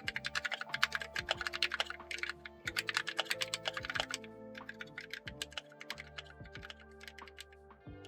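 Fast typing on a GMMK mechanical keyboard fitted with lubed Kailh purple switches and cherry-profile double-shot keycaps: rapid runs of keystroke clicks that thin out to a few scattered presses about four seconds in. Background music plays underneath.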